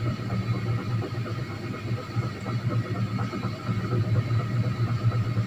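Steady low mechanical hum in the room, with faint strokes of a marker writing on a whiteboard.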